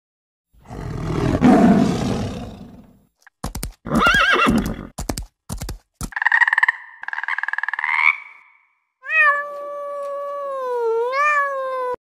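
A string of different wild-animal calls edited back to back: a tiger's rough growling roar in the first few seconds, then a run of short clicks and a buzzy, rapidly pulsing frog call, and near the end a long clear call that dips and rises in pitch.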